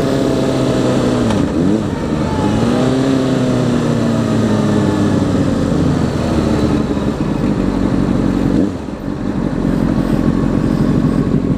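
Motorcycle engine heard from the rider's position, its pitch dipping and climbing again as it is throttled through the gears, then falling slowly as the bike decelerates, and settling to a lower, steady running near the end as it slows at an intersection. Wind noise on the microphone underneath.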